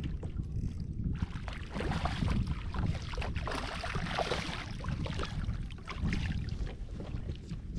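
A hooked striped bass splashing at the surface beside a kayak as it is reeled in, starting about a second in and dying down after about five seconds. Wind noise on the microphone throughout.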